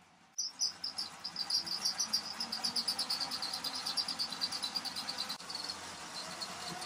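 Laser-cut wooden model steam locomotive driven by a moving treadmill belt: its wooden wheels, rods and gears clatter in fast, even clicks that start suddenly about half a second in. A low treadmill motor hum rises underneath toward the end as the belt speeds up.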